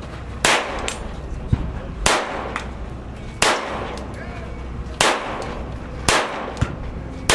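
Smith & Wesson Victory .22 LR pistol fired six times in slow, deliberate fire, about one to one and a half seconds between shots. Each shot is a sharp crack with a short ring after it.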